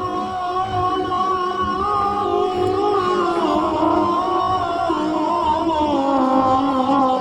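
Sicilian folk music on the soundtrack: a voice sings long held notes that step down in pitch twice.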